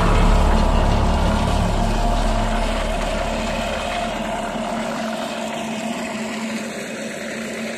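Motor-driven drum concrete mixer running with a steady hum and rumble, growing gradually fainter.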